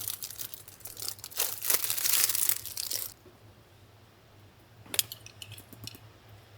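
Packaging crinkling and tearing for about three seconds, then a sharp snap about five seconds in followed by a few light clicks.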